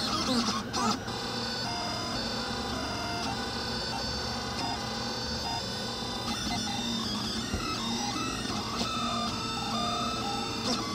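Delta 3D printer printing: its stepper motors whine in short tones that keep stepping and gliding in pitch as the print head moves, over the steady whir of the cooling fans.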